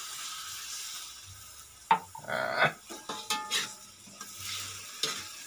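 Lais fish sizzling in a wok. About two seconds in, a sharp click is followed by a metal spoon scraping and knocking against the pan for a couple of seconds.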